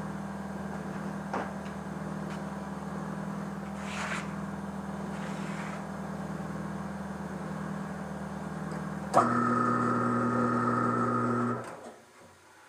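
Electric motor of a tire changing machine running with a steady hum. About nine seconds in it switches abruptly to a louder hum of a different pitch, which cuts off a couple of seconds later.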